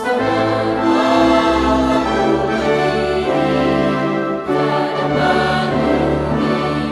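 Music: a choir singing with orchestral backing.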